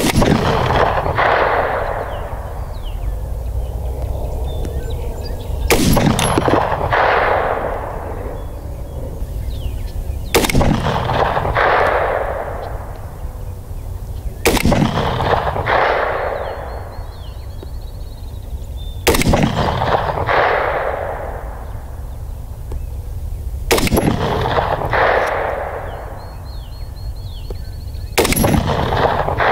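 .350 Legend rifle shots at a steel gong 302 yards away: seven shots about four and a half seconds apart. Each report is followed about a second later by a fainter crack from the distant plate and a long echoing tail.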